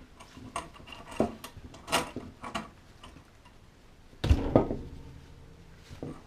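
Scattered clicks and knocks of tools and parts being handled during work on the refrigerator, with a louder double knock about four seconds in.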